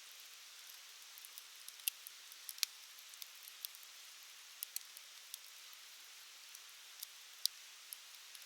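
Wood campfire crackling: a faint steady hiss with sharp, irregular pops and snaps, the loudest about two seconds in, again a moment later, and once more near the end.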